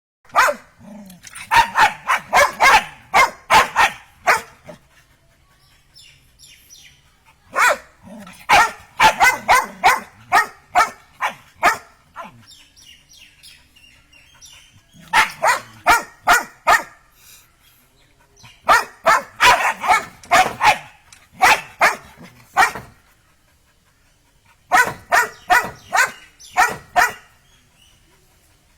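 A dog barking in quick runs of several sharp barks, five bouts separated by short pauses.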